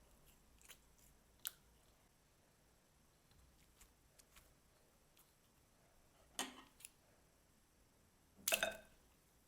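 Slime being handled: a few short, sticky pops and crackles against a quiet background, the loudest a cluster near the end.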